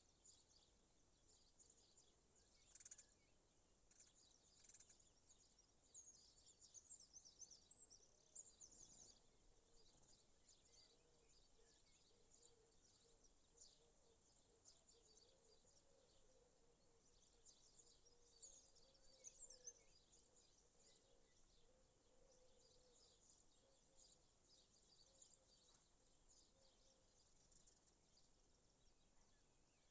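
Faint, distant birdsong outdoors: many short high chirps and trills scattered throughout, busiest in two clusters. A faint low hum that wavers in pitch runs through the middle.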